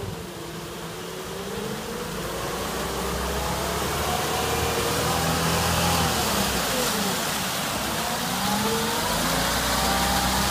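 Off-road 4x4's engine revving hard as it drives through deep muddy water, the pitch rising, dropping sharply about two-thirds of the way in as the throttle eases, then climbing again, over the rush and splash of water thrown up by the wheels. It grows louder as the vehicle approaches.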